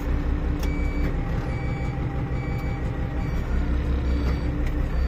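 Kalmar DCE 120-6 heavy forklift's diesel engine running steadily as the machine drives. A warning beeper gives short high beeps over and over, about one a second.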